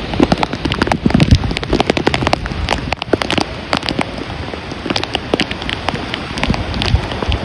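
Rain pattering close on the microphone in many sharp taps, over the steady rush of a river in flood.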